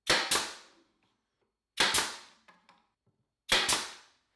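Nail gun firing three times, about a second and a half apart, driving 1-inch nails to fasten a glued wooden drawer stop: each shot a sharp double crack.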